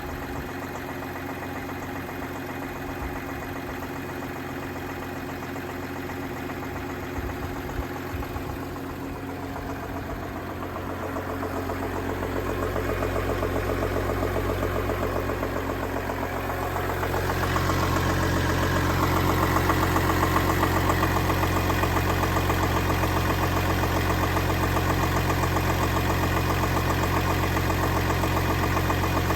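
Second-generation VW Touareg engine idling from cold with a knock under the bonnet whose source the owner is trying to find. It gets louder about twelve seconds in and again about seventeen seconds in, then stays steady.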